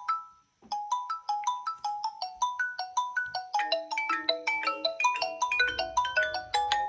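Smartphone ringtone melody of short, quickly fading pitched notes. One tune cuts off at the start, and after about half a second of silence a new one begins, filling out with lower notes and a busier line about halfway through.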